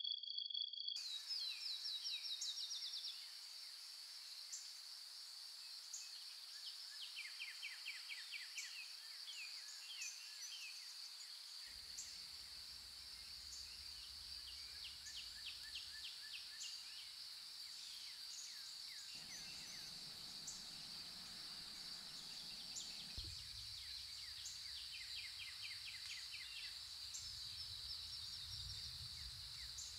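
Night chorus of crickets and other insects: a steady high-pitched trill with rapid pulsed chirps coming and going over it.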